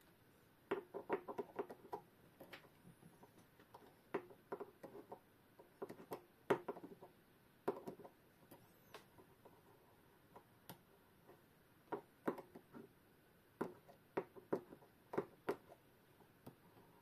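Irregular light clicks and taps of a hand tool and small metal parts, as the nuts holding a clock movement together are unscrewed and removed.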